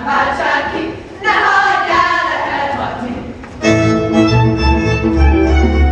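Women's voices singing a Hungarian folk song together for their own karikázó circle dance, in phrases with short breaks between them. About two-thirds of the way in, a folk string band with fiddles and a bass strikes up.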